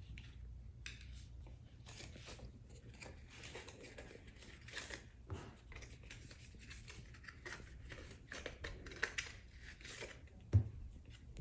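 Packaging of a small fidget toy being opened by hand: a scatter of faint clicks, snips and scrapes, with a few louder ticks near the end.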